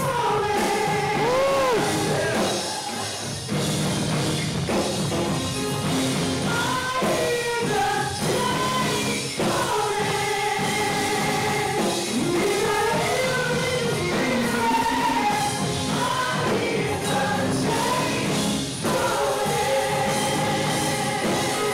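Live gospel praise music: a woman sings into a microphone with the band behind her, her notes bending and sliding over electric guitar and keyboard.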